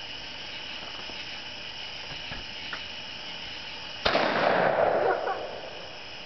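A .410 shotgun fires a Dragon's Breath incendiary shell about four seconds in: one sharp crack, then a noisy rush from the burning pellets that fades over about a second and a half. Crickets chirp steadily behind it.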